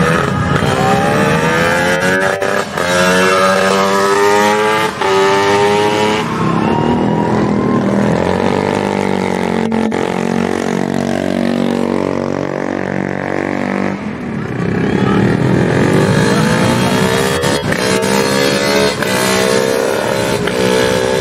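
Drag-racing motorcycle engines revving hard, the pitch climbing in long sweeps and falling back several times, with a bike accelerating away down the strip near the end.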